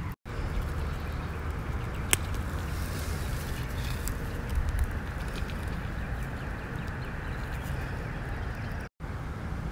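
Hands picking ripe strawberries among the leaves and straw mulch, over steady outdoor background noise, with one sharp click about two seconds in. The sound cuts out briefly twice.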